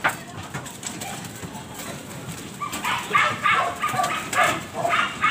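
A dog barking, a quick run of short barks about three to a second over the last two and a half seconds, after a single sharp knock at the start.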